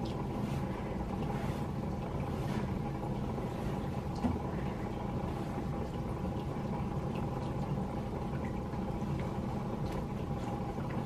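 Soft scraping of hands smoothing aquarium gravel substrate and sand across the glass bottom of a dry tank, over a steady background hum.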